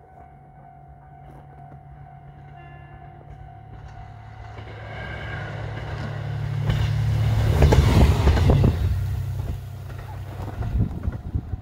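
Diesel train approaching and passing through the station on a snow-covered single track. Its engine hum grows to a peak about eight seconds in, with wheels knocking over the rail joints as the cars go by. A level-crossing warning bell rings faintly at first.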